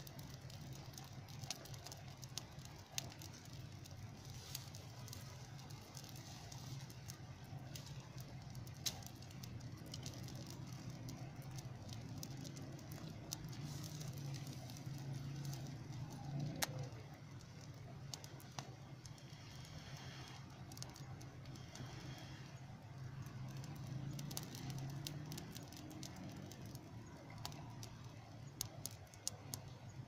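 Fire of dry twigs and branches burning, with sharp pops and crackles scattered throughout over a steady low hum.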